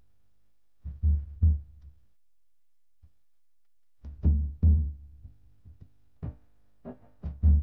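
Background music made of deep drum hits: pairs of beats with silent gaps between, coming quicker near the end.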